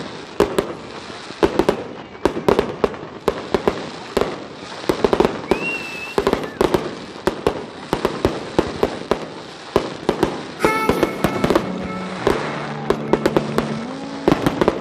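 Aerial fireworks display: a rapid, irregular run of bangs and crackling from bursting shells. Music comes in over the bangs about two-thirds of the way through.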